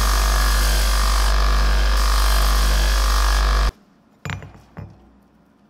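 Power grinder running loud and steady with steel pressed against it, sparking, until it cuts off abruptly. Then two light hammer strikes on an anvil.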